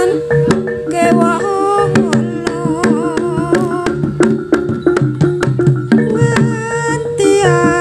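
Jaranan gamelan music: kendang drums beat a quick, dense rhythm, a gong tone is held underneath, and a wavering, bending melody line rides on top.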